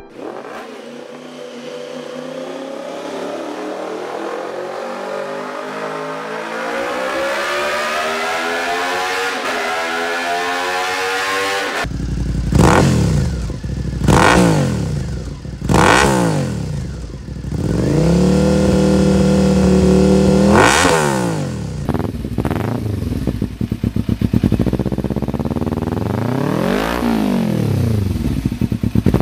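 Motorcycles on Yoshimura aftermarket exhausts. First a bike pulls away under acceleration, its note climbing steadily for about twelve seconds. Then a Suzuki SV650 V-twin is revved in short throttle blips and one longer held rev, and near the end a Kawasaki Ninja 300 parallel twin runs and is revved once.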